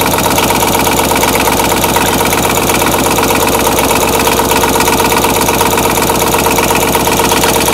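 Twin-cylinder diesel motorbike engine warming up at idle after a cold start, running steadily with rapid, even firing pulses.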